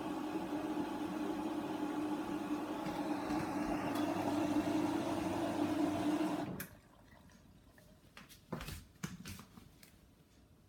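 Hoover washer dryer filling with water early in a 60-degree wash: a steady rush of incoming water with a hum under it, which cuts off suddenly about six and a half seconds in. A few light clicks and knocks follow.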